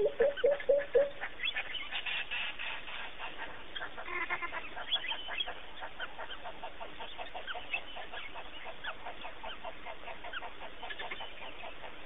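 Rapid, repeated short chattering calls, several a second, with a few lower, louder calls in the first second.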